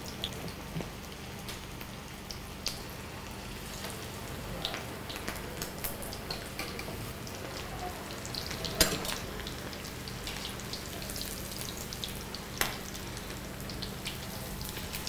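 Kakiage fritters, made of shredded vegetables, prawn and squid in tempura batter, deep-frying in hot oil in a wok: a steady sizzle with fine crackling throughout. Two sharp clicks stand out, about nine seconds in and again near thirteen seconds.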